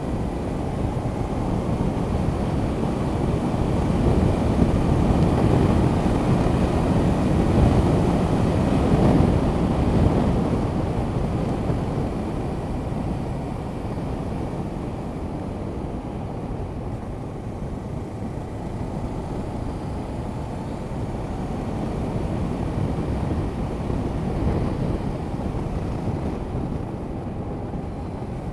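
Wind rush over the microphone of a motorcycle-mounted camera, with the Honda CB500X's parallel-twin engine running underneath at a steady cruise. It grows louder about four seconds in and eases off after about ten seconds.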